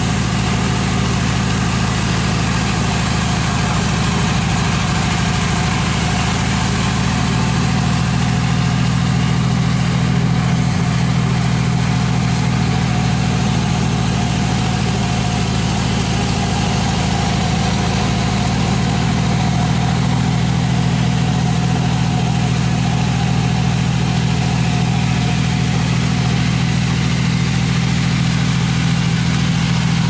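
An engine running steadily at an even, unchanging speed, a constant low hum.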